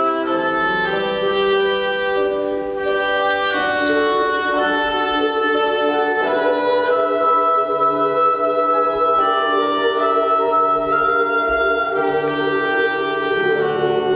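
Boys' choir singing long held chords, with piano accompaniment.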